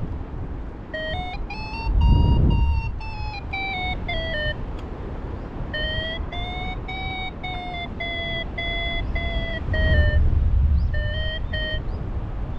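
Paragliding variometer beeping in short stepped tones whose pitch rises and falls, the climb tone that signals the glider is rising in ridge lift. Wind buffets the microphone underneath, with two stronger gusts about two and ten seconds in.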